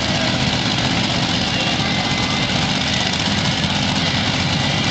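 Monster truck engines idling with a steady, unbroken rumble.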